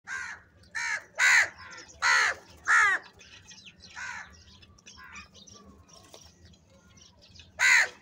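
A flock of house crows cawing: a quick run of five loud caws in the first three seconds, another about four seconds in and one more near the end, with fainter calls from other crows in between.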